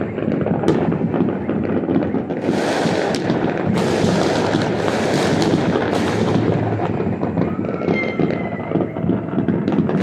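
Many fireworks going off across the city at once: a continuous rumble and crackle of far-off bangs, with a cluster of sharper, louder bursts in the middle.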